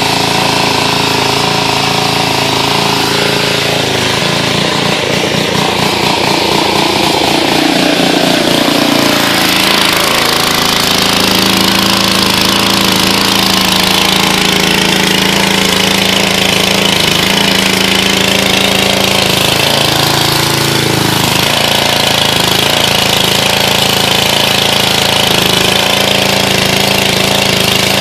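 Pressure washer's small engine running steadily, with the hiss of the high-pressure water spray. The engine's note shifts a couple of times.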